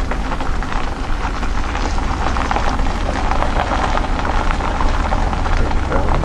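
Wind buffeting the camera's microphone: a loud, steady low rumble with a dense crackle over it.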